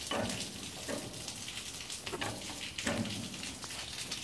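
Steady hiss of rain falling, with a few faint short low sounds over it.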